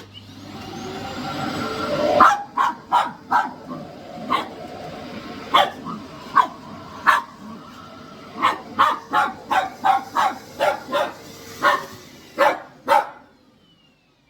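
A cordless stick vacuum switches on and its motor whine rises and then holds steady, while a dog barks at it again and again, about twenty sharp barks. Near the end the vacuum switches off and its motor winds down.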